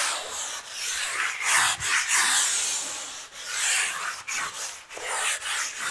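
Sandpaper rubbed by hand over a dried coat of wall primer, in quick, uneven back-and-forth strokes, each a scratchy hiss. The primer is being scuffed to knock off small bumps and fibres before the finish paint.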